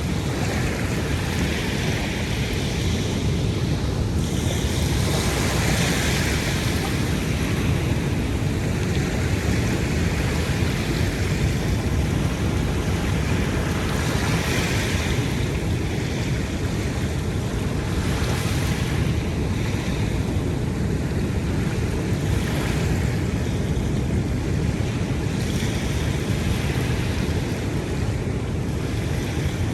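Ocean surf on a beach: a steady low rumble of water, with a brighter wash of breaking waves swelling up every several seconds.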